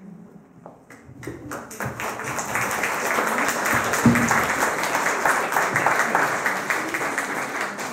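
Audience applauding: many hands clapping, building up about a second in and fading near the end, with a brief thump about four seconds in.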